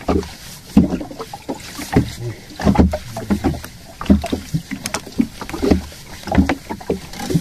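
Irregular knocks and thumps on a small fishing boat's hull, with water slapping, while a fish just struck on a handline is hauled in.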